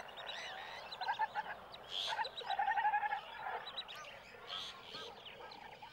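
Birds calling and chirping, many short notes overlapping, with a quick run of repeated notes about two and a half seconds in.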